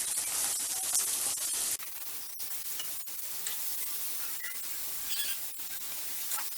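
Chopped onions frying in hot oil in a pan: a steady sizzle that drops in level about two seconds in, with a few light clicks from stirring.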